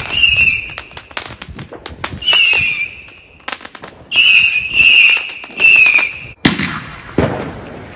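Weco Pfeiffer whistling fireworks going off, short shrill whistles on one high, slightly wavering pitch coming in runs over scattered crackling pops, then two sharp bangs near the end.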